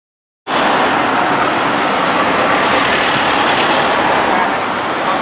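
Street traffic noise, a steady wash of passing vehicles that starts abruptly about half a second in.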